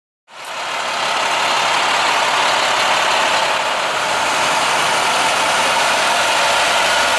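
An engine running steadily, fading in just after the start.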